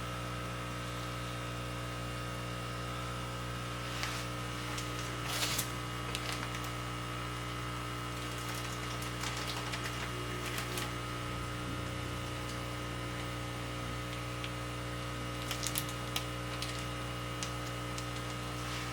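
Steady electrical hum made up of several constant tones, with a few scattered light clicks and rustles.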